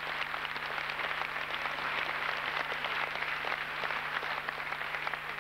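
Audience applauding steadily, with a steady low hum underneath.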